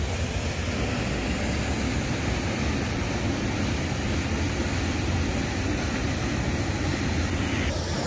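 Steady rushing of a waterfall and river.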